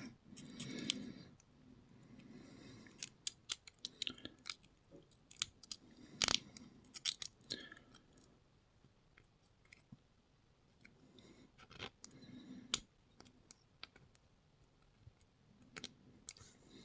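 Scattered light clicks and small scrapes from an old pin tumbler lock cylinder being taken apart, a shim being worked in around the plug.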